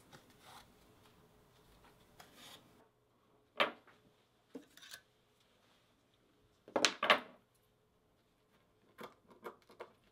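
Quiet hand-leatherwork handling sounds: soft rubbing swishes of thread drawn through leather, then a few short knocks and scrapes on a wooden bench, the loudest a quick cluster about seven seconds in.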